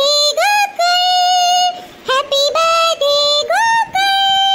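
A high-pitched, computer-generated singing voice singing a melody of long held notes, sliding up in pitch into several of them, with short breaks between phrases.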